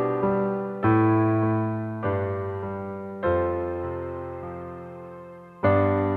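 Solo piano playing slow chords: a new chord is struck every second or so and left to ring and fade, with a louder chord near the end.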